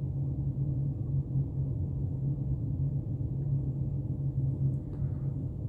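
Steady low rumble of background noise, with a faint brief sound about five seconds in.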